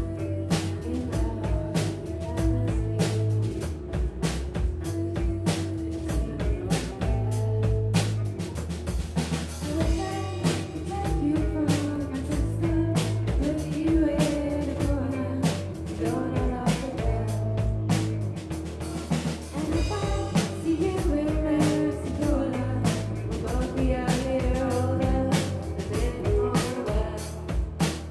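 Live indie rock band playing: electric guitars and a drum kit keeping a steady beat, with a woman's sung vocals coming in about ten seconds in.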